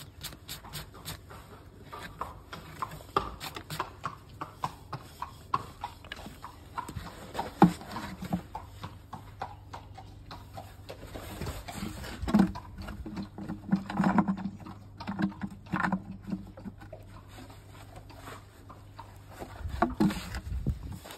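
Knocks and scrapes from a Shire horse's hoof being brushed and handled on a metal hoof stand, with the horse's hooves clopping and shifting on hard ground. A louder run of thuds comes a little past halfway.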